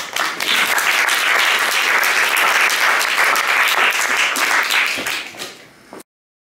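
Audience applauding a lecture, many hands clapping together. The applause thins out near the end and then cuts off suddenly.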